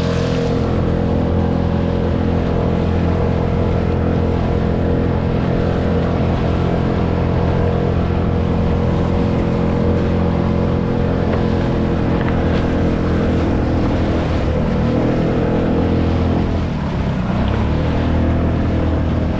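Small outboard motor pushing a solo skiff, running steadily, with water rushing and splashing along the hull. About fifteen seconds in, the engine note drops and comes back up.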